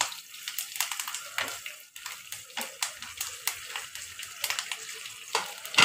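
Mustard seeds, cumin and curry leaves sizzling and crackling in hot oil in a non-stick frying pan, with many sharp, irregular pops over a steady hiss: a tempering (tadka) of spices spluttering. A wooden spatula stirs and scrapes through it.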